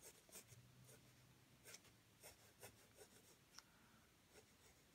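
Faint scratching of a graphite pencil drawing on paper: a handful of short, soft strokes at uneven intervals.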